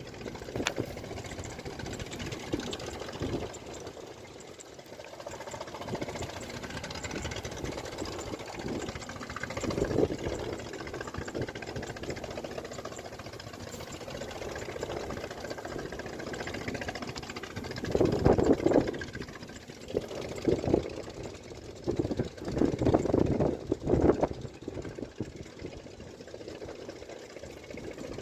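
Heavy diesel engines of mining machinery running steadily, with louder surges about ten seconds in and several times in the last ten seconds.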